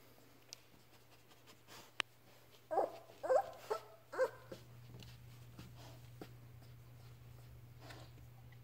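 Young Labrador puppy giving four short whimpering squeaks in quick succession, about three seconds in.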